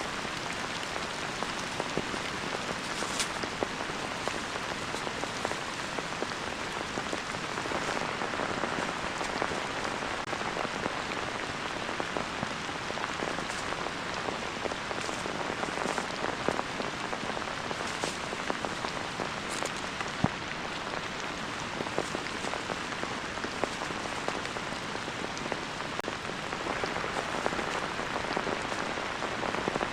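Heavy rain falling steadily, with many individual drops tapping sharply through the constant hiss.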